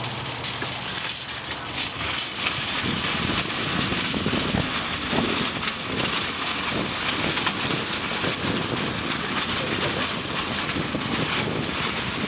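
Shopping cart with a rider in it being pushed fast, its wire basket and casters rattling and clattering continuously.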